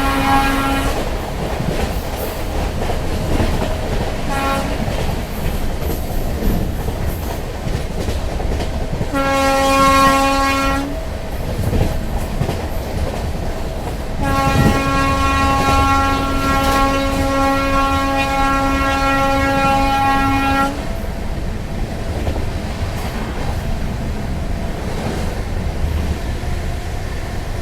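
Express train passing at speed, its locomotive air horn sounding again and again: a blast that cuts off about a second in, a short toot, a blast of about two seconds, then a long one of about six seconds. Under the horn, the train's rumble and clickety-clack on the rails.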